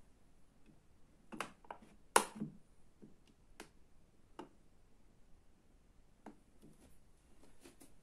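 Several short, sharp plastic clicks and taps from hands handling a small plastic humidifier and pressing its top button, the loudest about two seconds in.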